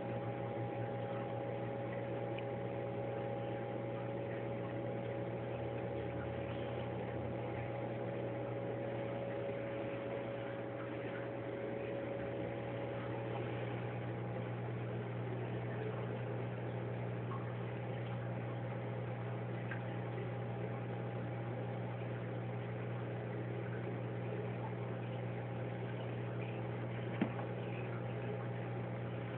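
A steady machine-like hum made of a few steady tones, one of which drops out about halfway through, with a single click near the end.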